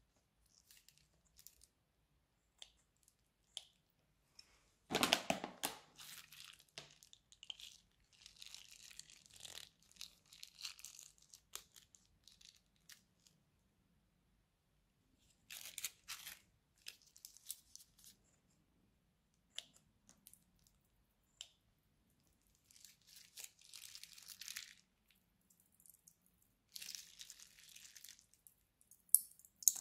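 Plastic piping bags crinkling and crackling as they are squeezed to push slime out into a glass dish, in separate bursts of a second or two with quiet gaps between. About five seconds in comes a louder, sharper crackle, like the bag being torn or ripped open.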